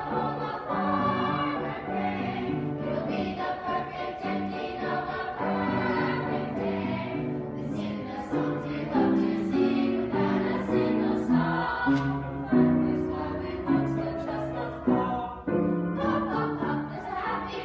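A children's choir singing, the voices moving together from note to note.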